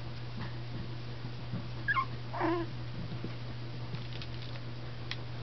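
A six-week-old Yorkshire terrier puppy gives two short high cries about two seconds in, the first falling in pitch, over a steady low hum.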